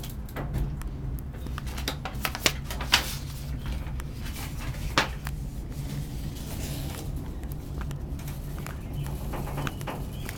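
Inclined-railway (funicular) car travelling on its cable near the end of its run: a steady low hum with a few sharp clicks and knocks about two and a half, three and five seconds in.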